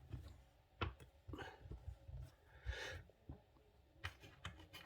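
Faint scattered clicks and light knocks of handling, with two soft breaths in between, the first about a second and a half in and the second near the three-second mark.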